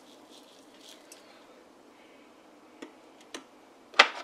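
A few faint ticks of the last cracked-wheat grains settling in a large steel pot, then one sharp click near the end, the loudest sound.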